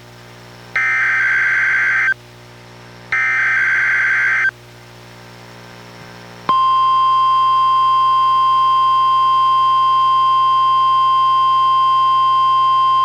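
NOAA Weather Radio test signalling from a Reecom R-1630 weather radio: two bursts of SAME digital header data, each a buzzing warble about a second and a half long, a second apart. About two seconds later the steady 1050 Hz warning alarm tone comes on and holds.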